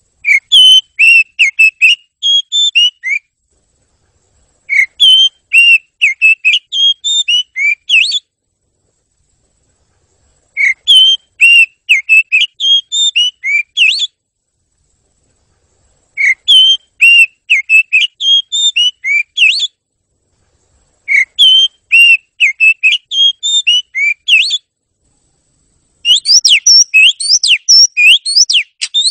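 Oriental magpie-robin singing: bouts of rapid, high whistled notes, each about three seconds long, separated by silent gaps of about two seconds.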